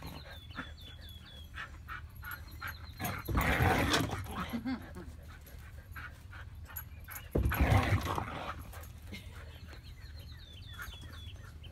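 A Belgian Malinois and a Miniature Pinscher playing: dog panting and short high whimpers, with two loud rough bursts of noise about three and seven seconds in.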